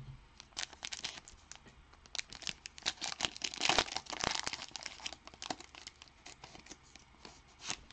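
A Panini Mosaic football card pack's wrapper being torn open and crinkled by hand. It is a run of sharp crackles, thickest in the middle.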